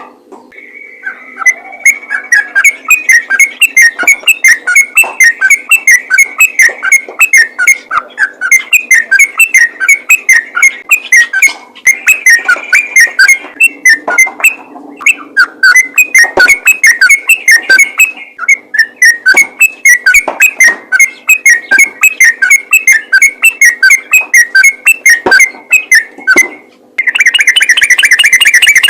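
Yellow-vented bulbul singing a fast, unbroken string of short bubbly whistled notes, the rapid 'ropel' song used to call other bulbuls. It breaks off briefly about halfway and again near the end, then goes into a denser, louder trill.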